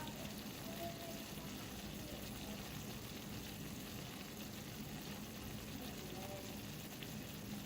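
Food frying in a hot pan, a steady sizzle.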